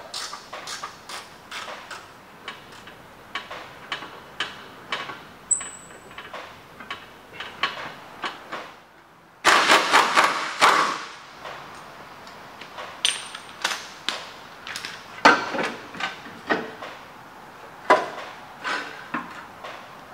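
A hand ratchet clicks in short strokes as it works on the rear strut bolts. About nine and a half seconds in, a pneumatic wrench runs loud for about a second and a half, and more ratchet clicks and shorter bursts of the tool follow.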